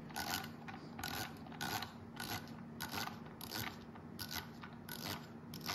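1Zpresso JX hand coffee grinder's external adjustment dial being turned by hand toward fully closed burrs, clicking through its 25-micron steps at roughly two to three clicks a second.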